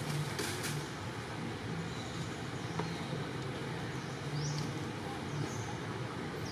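Steady outdoor background noise, a constant low rumble and hiss with no distinct event, with a few faint short high chirps partway through.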